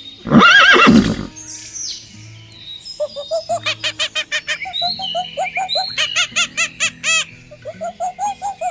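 A bird calling in a fast run of short repeated calls, about four a second, after one loud pitched call that rises and falls about half a second in, over faint background music.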